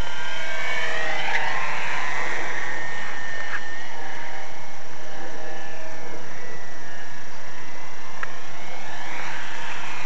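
Small electric motor and slow-fly propeller of a GWS Corsair radio-control model plane whining in flight, its pitch rising and falling as the plane swoops past, over a steady hiss.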